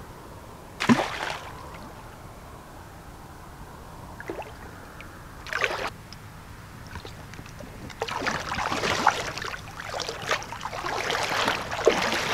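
Fishing gear being handled close by while an angler gets a carp line out. There are two sharp knocks or clatters, about a second in and about five and a half seconds in, then continuous rustling and clicking from about eight seconds on.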